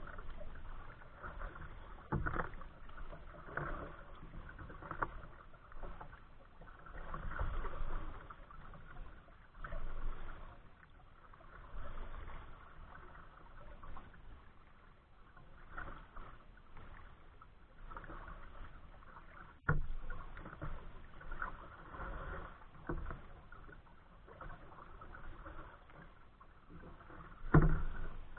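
Water splashing and sloshing around a kayak's hull in light chop, coming in uneven surges every second or two, with a few sharp knocks, the loudest near the end.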